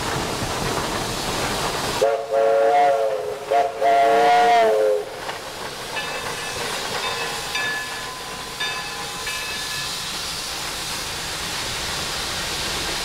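Shay steam locomotive sounding its steam whistle in two blasts of about a second and a half each, a couple of seconds in. Before and after the whistle there is a steady hiss of steam from the working engine.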